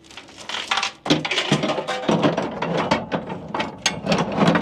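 Steel flatbed tie-down chain clinking and rattling, link against link, as it is handled and its hook is caught onto the chain, with a dense run of metallic clanks beginning about half a second in.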